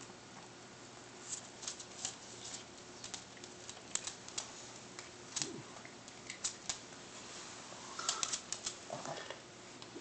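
Dog chewing on a rib held in a hand: irregular sharp clicks and crunches of teeth on meat and bone, coming in quick runs.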